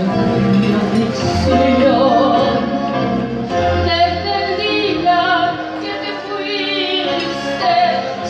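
A woman singing into a microphone through a PA system over instrumental accompaniment, holding long notes with a wavering vibrato.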